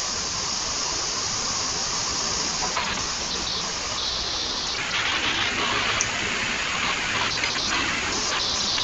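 Steady hiss of background noise, with a few faint clicks.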